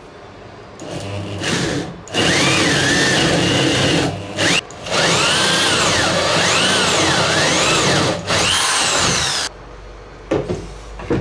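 Corded electric drill boring holes through a wooden board in several runs, its motor whine rising and falling as the trigger and the load on the bit change, stopping about 9.5 s in. A couple of wooden knocks follow near the end as the board is handled.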